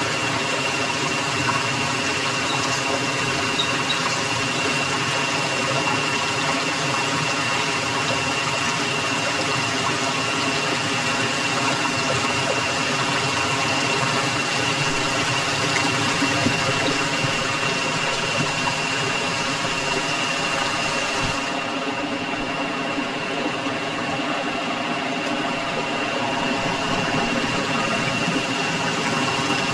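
Steady rushing of a rainforest stream, with a continuous high-pitched tone running through it. The highest hiss thins about two-thirds of the way in.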